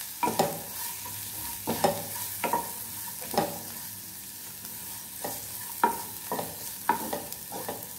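Wooden spatula scraping and knocking against a non-stick kadai at uneven intervals as sliced cabbage, carrot, onion and paneer are stir-fried, over a steady sizzle of hot oil. The vegetables are being tossed in the spices and cooked until soft.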